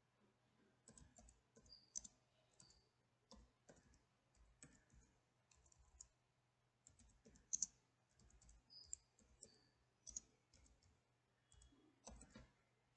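Faint, irregular keystrokes on a computer keyboard, typed in short runs.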